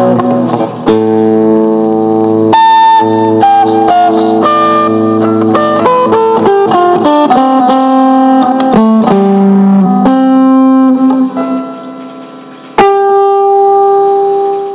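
Guitar played solo: strummed chords and picked single notes. Near the end the sound dies away, then a new chord is struck and left ringing.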